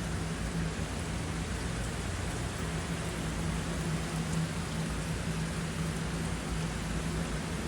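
Steady rain falling and pattering on surfaces, an even hiss with no pauses. A faint low steady hum runs underneath.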